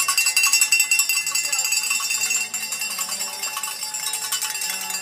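Spectators' cowbells shaken fast and without a break, a dense metallic clanging that is loudest in the first half and eases a little about halfway through.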